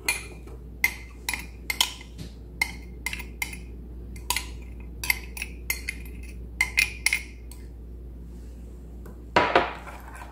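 A metal spoon clinking against a glass measuring jug while a thick sauce is stirred: irregular sharp clinks, roughly two a second, that stop a couple of seconds before the end, followed by a brief louder noise.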